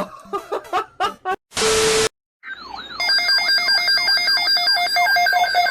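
Choppy edited sound bites, then a short loud burst of static, then an electronic alarm-like tone: steady pitches with quick falling chirps repeating about four times a second.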